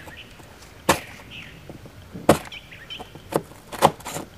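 A metal blade prying and chipping into a hardened mud dauber nest, giving several sharp cracks about a second apart as chunks of dried mud break away and fall onto concrete.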